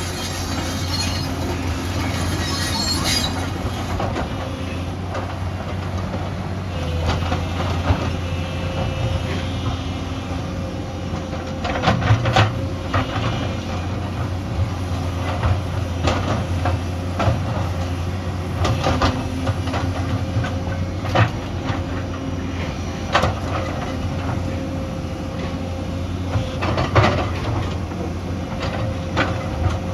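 Excavator's diesel engine running steadily under load, with scattered metallic clanks and knocks as the bucket works among stones.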